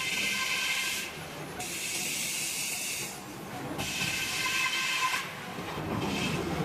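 Table saw cutting oak: three screeching bursts about a second long as the blade goes through the wood, and a short one near the end, with the saw's steady low running noise between them.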